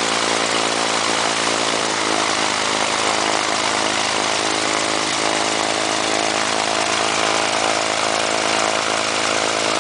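Lancair Legacy's uncowled piston aircraft engine idling steadily on its first-ever run, with the propeller turning.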